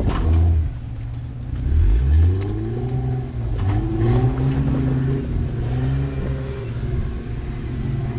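Off-road 4x4 SUV's engine revving up and down in repeated short blips, with a deeper, louder surge about two seconds in.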